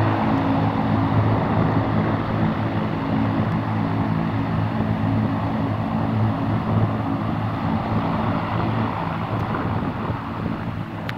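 ATR 42 twin-turboprop taxiing at low power: a steady drone from both engines and propellers, with a low even hum beneath a broad rushing sound.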